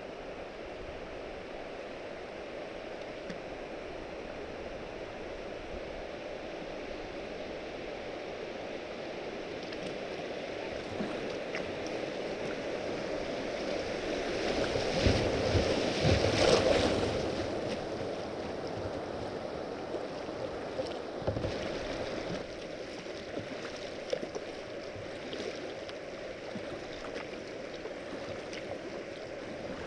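Rushing river water around a kayak running a shallow shoal of small rapids: a steady rush that swells into loud churning and splashing at the bow about halfway through, then eases back to the flow of moving water.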